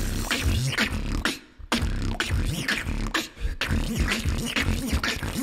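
Solo beatbox routine: deep inward lip bass lines that bend up and down in pitch, cut with sharp kick and snare hits. There is a short break about a second and a half in.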